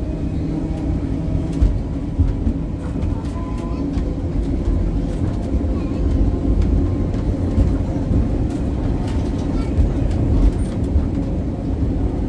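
Vintage tram running on its track: a steady low rumble with faint motor tones, and frequent irregular clicks and rattles.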